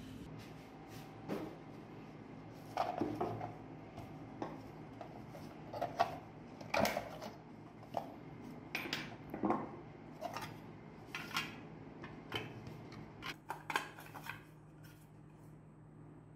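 Honda CD 70 headlight unit being taken apart with pliers: irregular metallic clicks and clinks as the tool and the metal rim, clips and glass lens knock together, about a dozen, the loudest around the middle.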